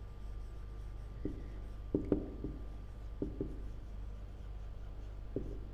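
Marker pen writing on a whiteboard: a handful of short strokes about a second apart, over a low steady hum.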